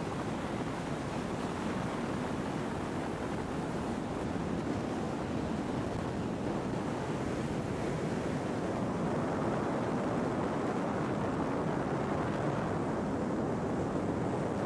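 Steady rush of wind and water from a powerboat running fast through choppy water, with wind buffeting the microphone and no distinct engine note.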